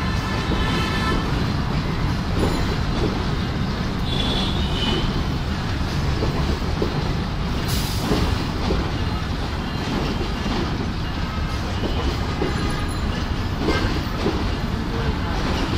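Passenger coaches rolling along the rails in a station yard: a steady low rumble of wheels on track, with brief high-pitched squeals about a second in and again about four seconds in.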